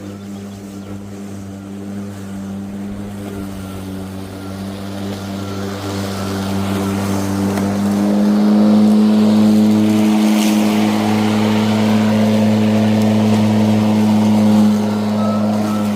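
Einhell GP-CM 36/52 cordless lawn mower running, its motor and spinning blade giving a steady hum that grows louder through the first half and eases off near the end. A single sharp click about two-thirds of the way through.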